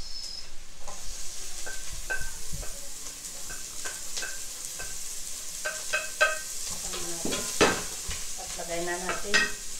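Chopped onion and garlic sizzling as they sauté in a nonstick pot. A wooden spatula stirs them, scraping and knocking against the pot many times, with one louder knock late on.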